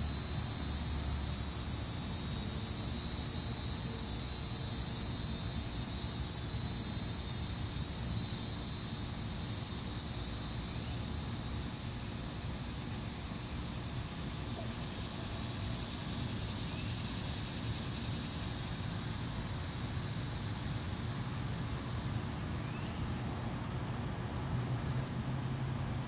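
Cicadas singing in the trees: a steady high buzz that fades over the first ten seconds or so, then a high call pulsing about once a second near the end. A steady low rumble runs underneath.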